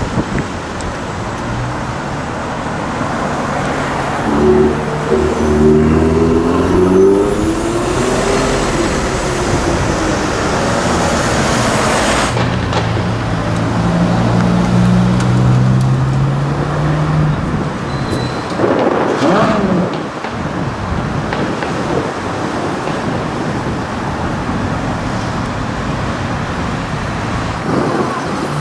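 Busy city road traffic, with a car engine revving up in pitch a few seconds in. Through the middle a low engine note holds as a Ferrari 458 Speciale, with its naturally aspirated V8, drives past.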